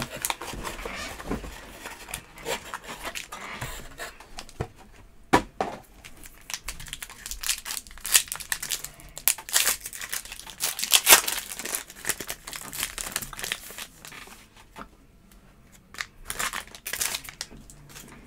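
A foil trading-card pack being torn open and crinkled by hand: a run of sharp crackling rips, loudest and busiest about halfway through.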